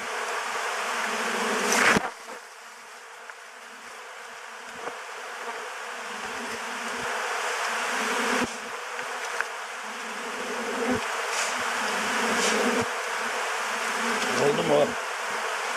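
Mass of honeybees buzzing in a steady dense drone around a honeycomb frame and a beekeeper's bare body, with a short loud burst about two seconds in, after which the buzzing drops away and slowly builds again.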